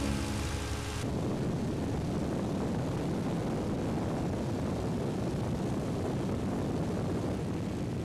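Piston engine and propeller of a light single-engine observation plane running steadily in flight, heard from inside the cabin. The tone shifts to a denser, lower drone about a second in.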